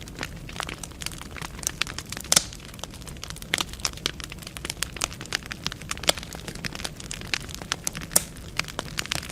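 Wood fire burning in a fireplace: irregular crackles and pops over a low steady rumble of flames, with a sharper pop about two seconds in.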